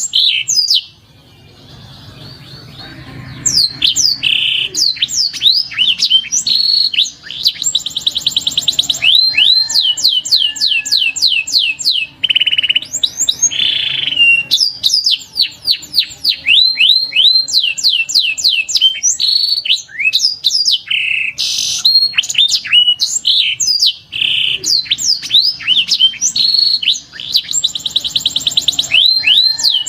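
Domestic canary singing: fast rolling trills alternating with runs of quick downward-sliding whistle notes, with a brief pause about a second in.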